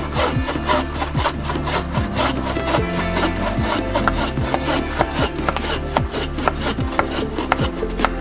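Wooden-frame bow saw cutting through a peeled wooden pole, its blade rasping back and forth in quick, even strokes, about four a second.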